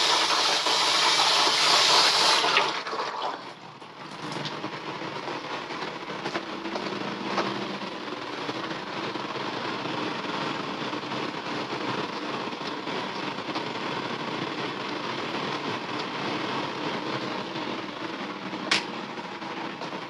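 Tap water running hard into a sink for rinsing, which stops about three seconds in. After that a steady kitchen background hiss and hum, with a sharp click near the end.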